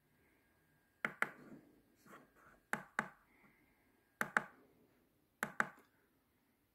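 Plastic control button on a JVC RV-NB200 boombox pressed four times, each press a quick double click of press and release, stepping the unit through its source modes.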